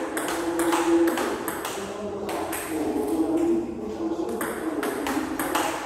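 Table tennis rally: the celluloid ball clicking off paddles and bouncing on the table in a quick, steady back-and-forth.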